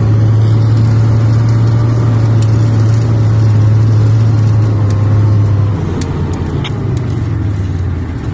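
T-55 tank's V-12 diesel engine running under way, heard up close from on the hull: a loud, steady drone with a whine that slowly falls in pitch as the level eases a little about six seconds in.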